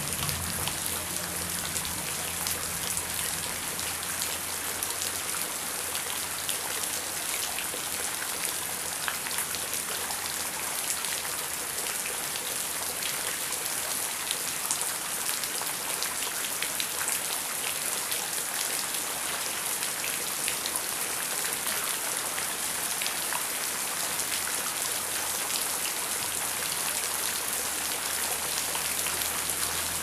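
Heavy rain falling steadily, a dense even hiss full of individual drops pattering on surfaces. A low rumble fades away in the first second or two and comes back near the end.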